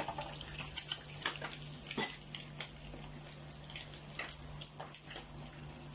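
Fish frying in hot oil in a skillet: a steady sizzle broken by irregular crackles and pops of spattering oil, the sharpest pop about two seconds in.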